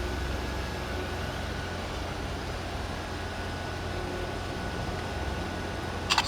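Steady low rumble of heavy construction machinery running. Two quick sharp clicks near the end.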